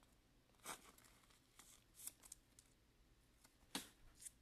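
Near silence with a few faint brushes and taps of trading cards being handled and set down on a table mat.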